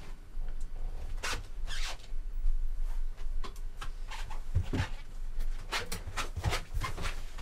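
Scattered short rustles and clicks of hands working at close range, several coming in a quick run near the end, over a steady low hum.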